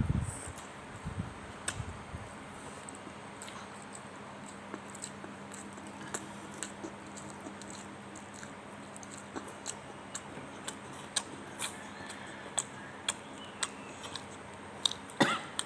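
Close-up mouth sounds of a person eating fried sushi: chewing with irregular soft clicks and smacks.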